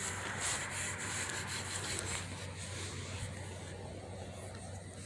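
Handling noise on a hand-held phone: rubbing and rustling against the microphone, with a few faint light taps.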